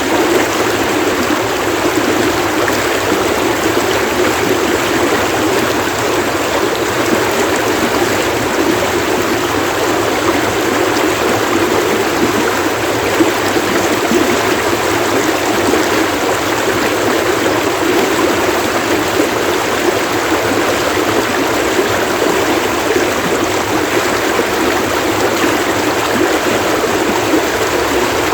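Running water splashing and burbling steadily in a stream.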